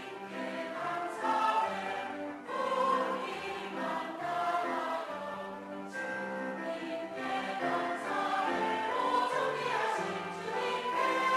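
Mixed church choir of men's and women's voices singing a Korean hymn of thanksgiving.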